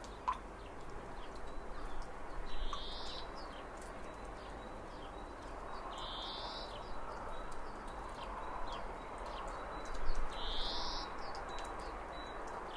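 Birds singing outdoors: one bird repeats the same short, high song phrase three times, about every four seconds. Scattered small chirps and a steady background hiss run beneath it.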